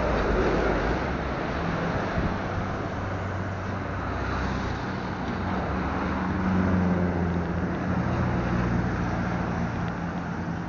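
Road traffic passing close by: motor vehicle engines running with a steady low hum that grows stronger in the second half, over wind noise on the microphone.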